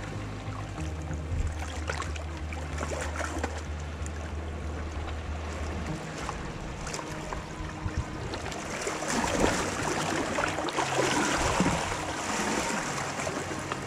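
Sea water lapping and sloshing among shoreline rocks close to the microphone, growing louder about nine seconds in, over a low steady hum.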